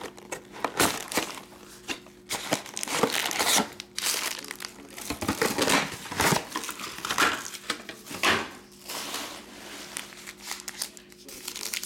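Wrappers of Panini Diamond Kings trading-card packs crinkling in irregular bursts as the packs are handled and torn open.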